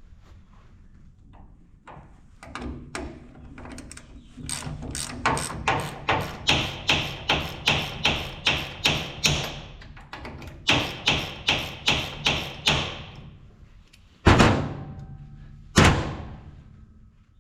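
Hammer blows on steel driving a bolt out of the drill gearbox: two quick runs of strikes, about two to three a second, then two heavier single blows near the end.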